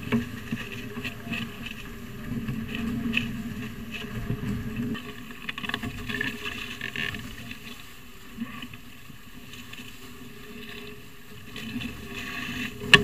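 Water rushing and splashing along the hulls of a Spitfire sailing catamaran under way in choppy water, with wind on the microphone; a loud splash comes near the end.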